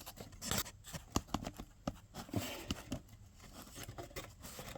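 Irregular light clicks and knocks of a small engine's carburetor and its parts being handled and taken apart on a workbench.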